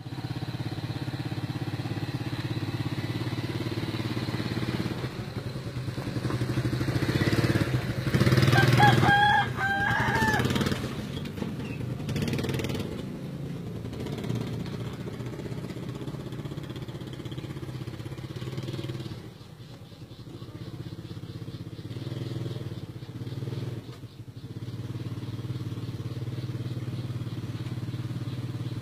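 Small motorcycle engine of a motorised tricycle running steadily, louder for a few seconds about a third of the way through, with a couple of dips later on. A rooster crows about nine seconds in.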